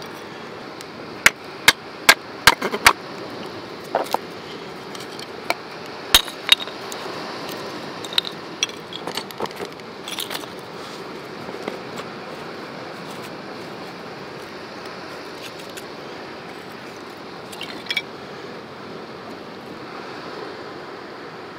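Knife splitting thin kindling sticks: a quick run of five sharp cracks in the first few seconds, then scattered clicks and knocks as the sticks are handled and laid on stones. A steady hiss runs underneath.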